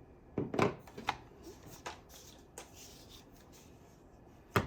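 Hard plastic and metal parts being handled as a PEQ-15 style box is fitted onto an airsoft rifle's rail: a scatter of sharp clicks and knocks with light rubbing, the loudest just over half a second in and a single knock near the end.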